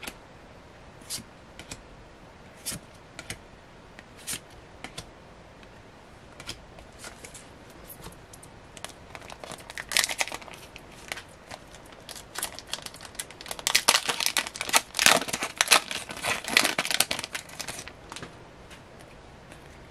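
Trading cards clicking now and then as they are flipped through, then a Pokémon 25th Anniversary Collection booster pack's foil wrapper crinkling and tearing open. There is a burst of crackling about halfway in and a louder, longer run of crinkling from about two-thirds of the way in.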